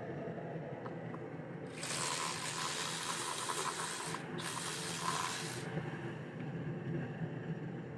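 Two hissing sprays, the first about two and a half seconds long and the second about a second, over a steady low hum.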